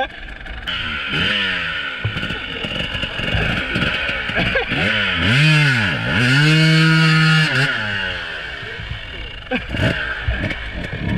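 Dirt bike engine revving in repeated surges, the revs dropping and climbing again, then held high and loudest for about a second and a half near the middle before falling away. There are a few short knocks near the end.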